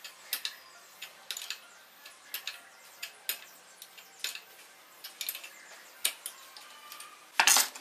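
Steel open-end spanner clicking against a hex nut as it is refitted and turned in short strokes down a threaded rod: irregular sharp metallic clicks, with a louder knock near the end.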